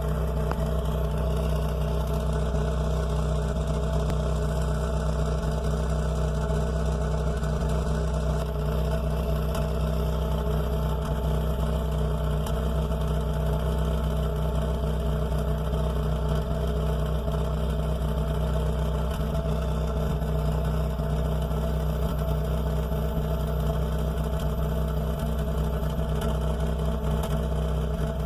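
Chevrolet Corsa 1.6's four-cylinder petrol engine idling cold, heard at the exhaust pipe, with a steady, unchanging note. The owner hears a strange noise from the exhaust when the engine is cold and does not know its cause.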